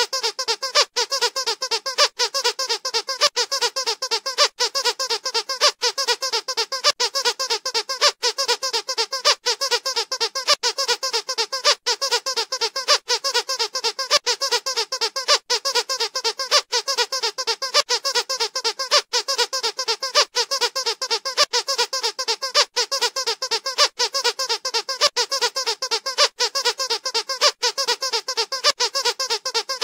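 Squeaky dog toy squeezed over and over, a steady, unbroken run of quick squeaks, several a second.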